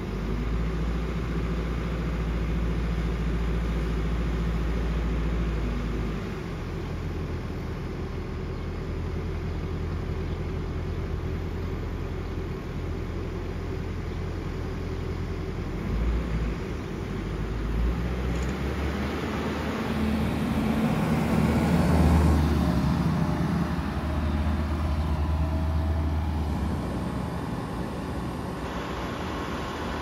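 Farm machinery engine running steadily at a low hum. The engine note changes abruptly a few times as different machines take over, and it is loudest a little past the middle.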